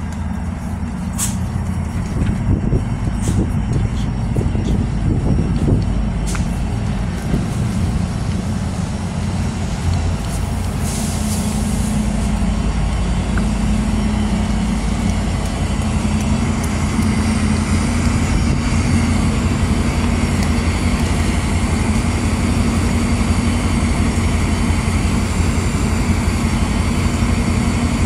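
Sounder commuter train's diesel locomotive running at the platform, a steady low engine drone that grows a little stronger in the second half. A hiss of air brakes about ten to twelve seconds in, and a few sharp clicks in the first six seconds.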